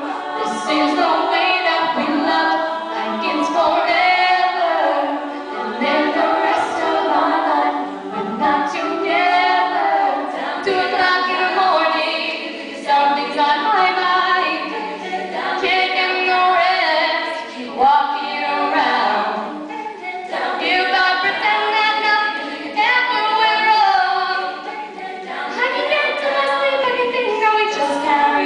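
All-female a cappella group singing, lead voices amplified through handheld microphones over the group's sung backing.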